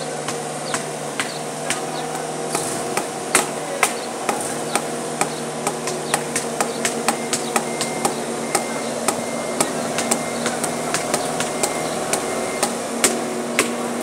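Construction machinery engines running steadily, with sharp hammer-like knocks repeating at about two a second, starting a couple of seconds in.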